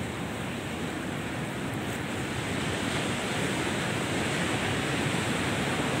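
Steady rush of ocean surf breaking on the shore, with no distinct events.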